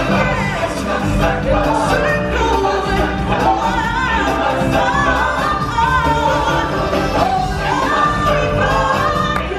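Stage-show music: a choir of singers over a loud band accompaniment.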